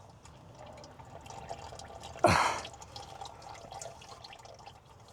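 Engine oil dripping and trickling from the open drain hole into a drain pan, a steady patter of small drips. About two seconds in there is one short, louder noisy sound.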